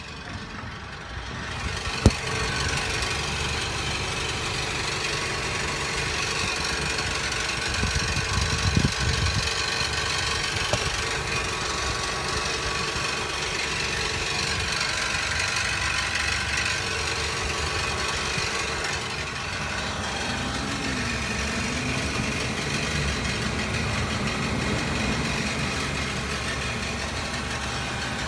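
2017 Nissan NV200 cargo van running steadily with a rattling noise whose cause is not known, with one sharp click about two seconds in.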